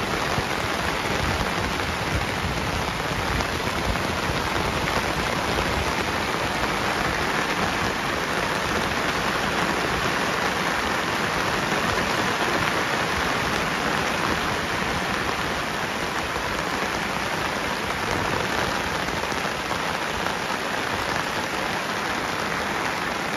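Heavy rain pouring down steadily as a dense, even hiss.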